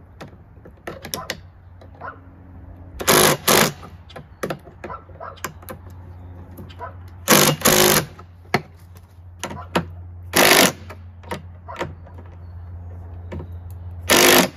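Cordless impact driver tightening the handle-mount bolts on a lawn mower, in about six short bursts of hammering that come in four groups, with small handling clicks between them.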